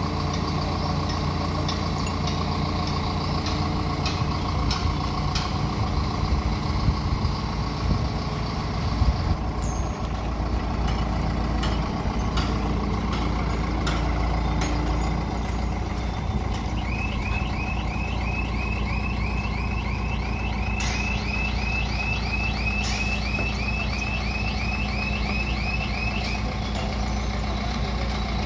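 Large crane's diesel engine running steadily with a heavy low drone, with occasional short metallic knocks. Partway through, a rapid run of short high chirps, about four a second, sounds over it for several seconds.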